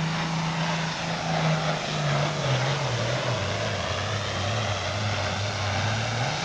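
Heavy super stock diesel pulling tractor engine running flat out under load while dragging the sled. Its pitch drops about halfway through as the engine is pulled down by the sled, then holds lower.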